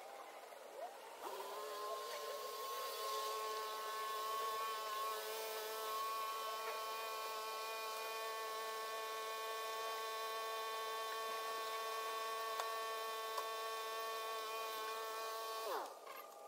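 A motor-driven machine starts up about a second in, runs at a steady pitch, then cuts out near the end with its pitch dropping.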